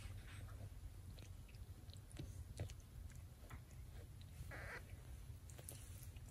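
Mother cat licking and washing a newborn kitten: faint, quick wet licking clicks over a low steady rumble, with a brief soft rustle about four and a half seconds in.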